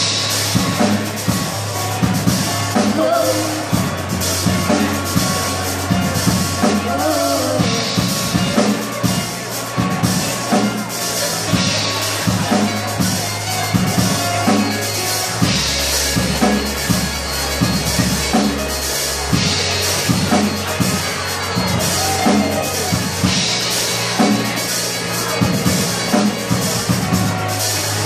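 Live band playing an instrumental stretch of a song: a drum kit keeps a steady beat under keyboards and a held bass line.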